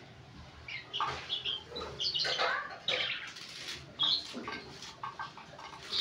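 Caged lark singing in short, varied high-pitched chirps and trills, with brief pauses between phrases.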